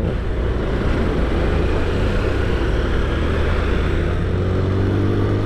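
Honda CG Titan 160's single-cylinder four-stroke engine running as the motorcycle rides through traffic, its pitch rising gently over the last couple of seconds as it picks up speed, under a steady rush of wind and road noise.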